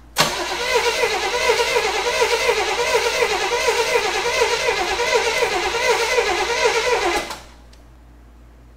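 The 1985 Oldsmobile Cutlass 442's V8 being cranked by its starter after 22 years of sitting, carburetor primed with fuel: a sharp solenoid click, then about seven seconds of cranking that rises and falls rhythmically without catching, stopping abruptly when the key is released.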